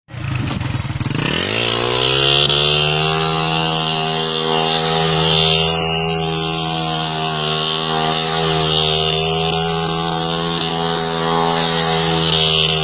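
Honda CG 125's single-cylinder four-stroke engine revving up over the first second or so, then held at high, steady revs. The bike lies on its side with its rear wheel spinning in sand.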